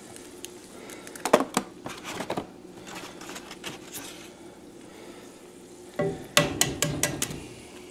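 Eggs, peas and fries sizzling quietly in a cast-iron skillet on low heat, with two runs of sharp clicks and knocks, about a second in and again from about six seconds, as more eggs are cracked against the pan and their shells handled.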